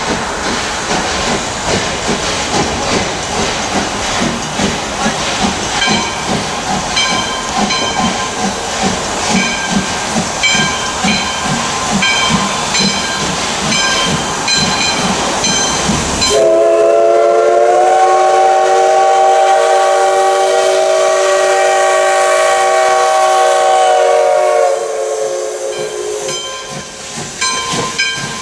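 Wilmington and Western No. 58 steam locomotive working along the line with rhythmic exhaust chuffs and hiss. About halfway through, its steam whistle sounds one long chord of several notes for about eight seconds, then fades as the engine comes by.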